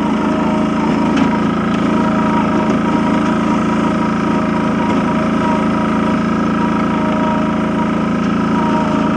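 Engine of a small farm loader running steadily as it drives along, with a steady high squeal over it that the driver puts down to a loose drive belt.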